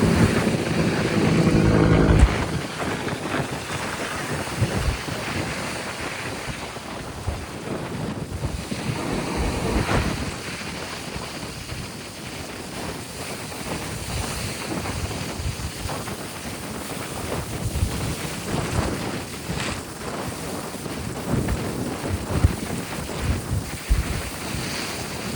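Mediterranean waves breaking and washing ashore under strong wind, with wind buffeting the microphone in irregular low rumbles. A low steady hum is also heard at first and stops about two seconds in.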